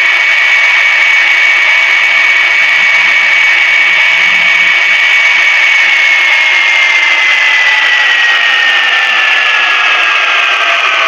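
High-pitched engine whine of a race-car sound effect, held steady, then falling slowly in pitch over the second half, as if the car were easing off.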